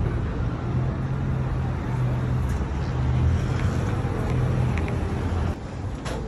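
City street traffic: cars driving past with a steady low engine hum under the road noise. The sound drops off suddenly about five and a half seconds in.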